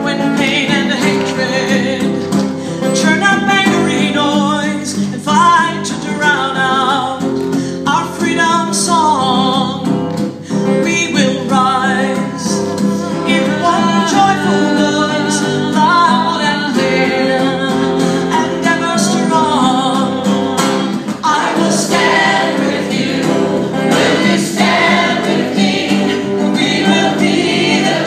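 Several women's voices singing a song together, with a strummed acoustic guitar.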